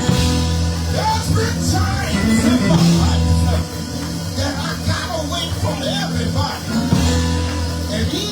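Live church music: sustained chords over a low bass line, changing every few seconds, with a voice singing over it.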